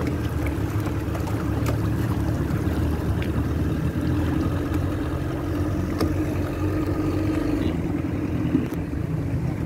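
Small boat's motor running steadily under way, with the rush of water and wind against the hull. Near the end the hiss drops away as the boat slows beside the pier.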